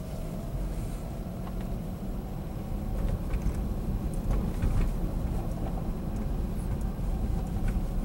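Inside the cabin of a 2011 Toyota Prius on the move: a steady low road and engine rumble, with a few faint ticks.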